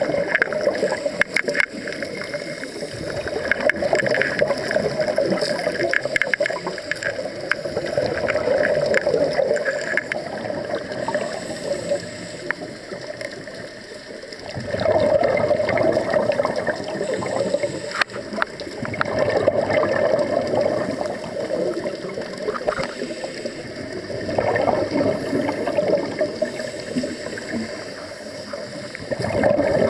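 Scuba regulator exhaust bubbles gurgling underwater, heard in surges every few seconds with each exhaled breath and with quieter gaps in between.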